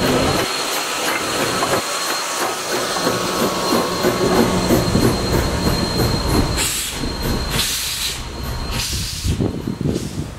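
Steam locomotive and its train rolling away: a steady hiss of steam with a thin high tone, and wheels clicking over the rail joints, slowly growing fainter.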